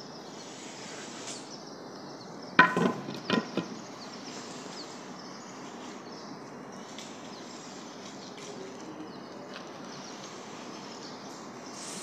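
A few sharp clacks of stone against stone or a tool on stone while a stone edging strip is set in mortar. The first clack, about two and a half seconds in, is the loudest and rings briefly, and two or three lighter ones follow within a second, over steady outdoor background noise.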